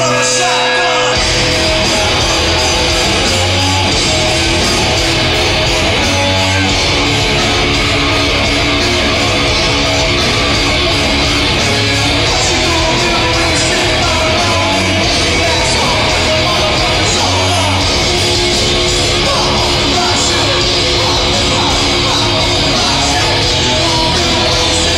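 Loud live rock music from a band: electric guitars over bass and drums, with the low end of the band coming in about a second in.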